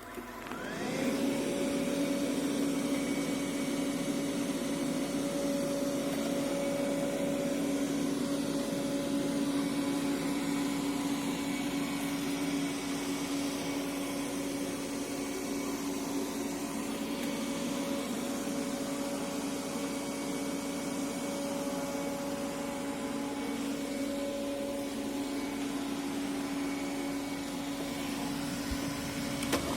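Aldi Easy Home robot vacuum cleaner's motor spinning up with a short rising whine about a second in, then running steadily with a low hum over a rushing noise. A couple of sharp clicks come at the very end.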